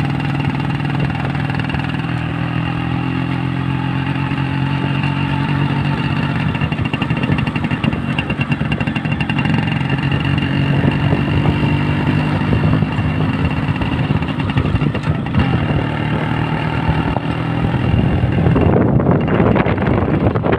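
Yamaha RX 135's two-stroke single-cylinder engine running as the motorcycle rides along, its note shifting a few times with the throttle. Wind buffets the microphone near the end.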